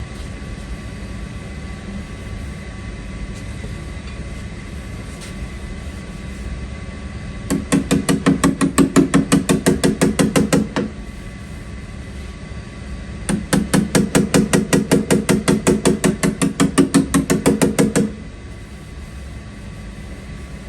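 Body hammer tapping rapidly on a car's sheet-metal quarter panel, reshaping it. It comes in two runs of quick, even strikes, several a second: the first about three seconds long, the second about five.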